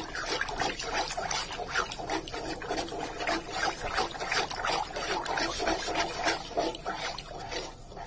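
Pot of water heating on a gas stove and nearly at the boil, bubbling with dense, irregular small pops and gurgles.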